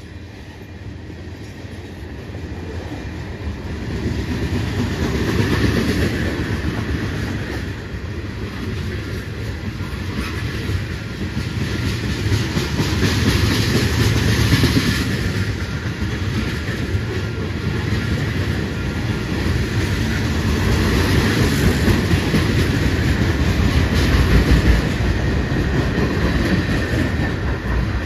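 Freight train cars (covered hoppers and tank cars) rolling past at trackside, their steel wheels rumbling and clacking along the rails. It grows louder over the first few seconds, then swells and eases as the cars go by.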